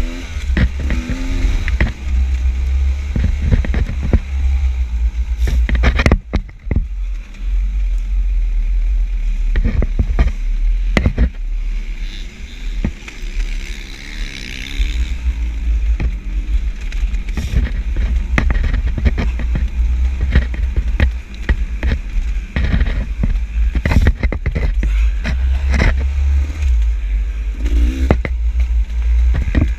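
Dirt bike ridden over rough enduro trail. The engine revs up and down under a heavy low rumble, with frequent sharp knocks and rattles from the terrain.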